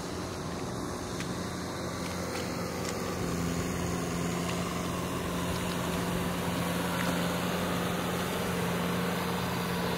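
Farm tractor's diesel engine running steadily, a little louder from about three seconds in.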